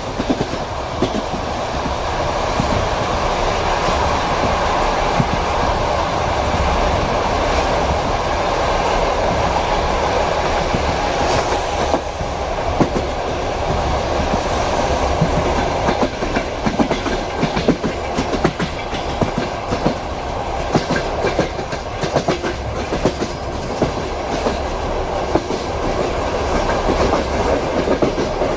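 Railway carriage wheels clattering over rail joints as the train rolls along, heard from inside a compartment, over a steady low rumble. The clicks of the wheels become sharper and more frequent about halfway through.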